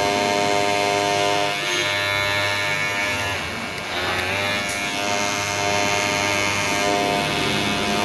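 Ubeator cordless electric hair clipper running with a steady buzz. About halfway through, its pitch and level dip briefly, then recover.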